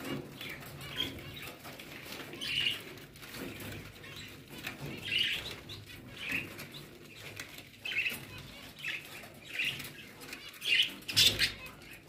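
Caged finches chirping in short, scattered high calls, with wings flapping in the cages. A few louder scuffling bursts come near the end.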